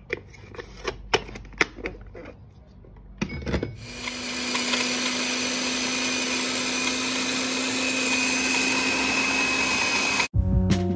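Electric food chopper chopping onion and garlic: a few clicks and knocks as it is handled, then about four seconds in the motor starts and runs steadily for some six seconds before stopping abruptly.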